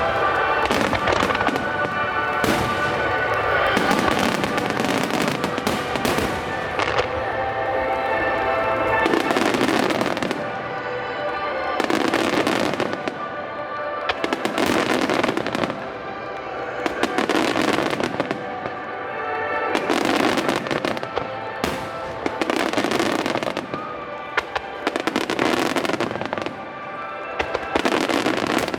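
Starmine fireworks bursting and crackling in rapid succession over music played through loudspeakers, with heavier bursts every two to three seconds in the second half.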